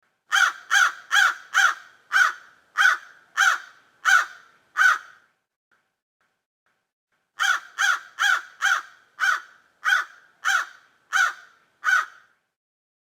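A crow cawing in two runs of about nine harsh caws each, separated by a pause of a couple of seconds. Within each run the caws come quickly at first and then spread out.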